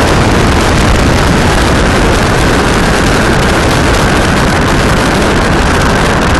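Loud, steady wind rush and road noise from a moving car, picked up by a microphone held out of the open side window, with wind buffeting the microphone.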